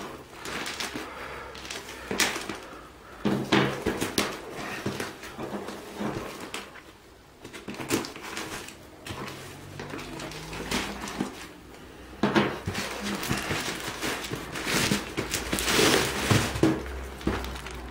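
Grey plastic mailing wrap being cut and torn open by hand, crinkling and rustling irregularly, with a cardboard box being pulled out of it near the end.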